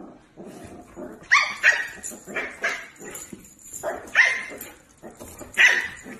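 Corgi puppy giving several short, high-pitched barks and yaps, spaced over a few seconds, warning off a husky that reaches toward its food bowl.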